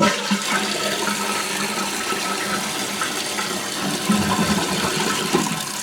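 Toilet flushing: a steady loud rush of water from the tank through the bowl, easing slightly near the end. It is a test flush of a 2005 Crane toilet with a new, adjustable Fluidmaster 502 flapper, checking that the setting stops double flushing.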